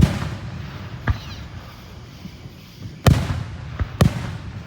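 Fireworks going off: a series of sharp bangs, one at the start, one about a second in, then a loud one about three seconds in and another near the end, each trailing off in a rolling echo.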